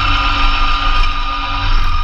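Massey Ferguson GC2300 compact tractor's three-cylinder diesel engine running steadily, driving a PTO-mounted Blizzard B48 snowblower.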